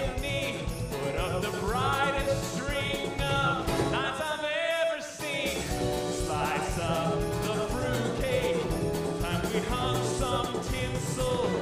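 Live band playing a Christmas medley with a male lead singer at the microphone, backed by drums, bass and electric guitars. The music dips briefly about halfway through, then carries on.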